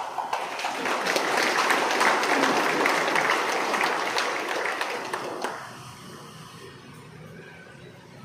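Audience applause, many hands clapping for about five seconds and then dying away.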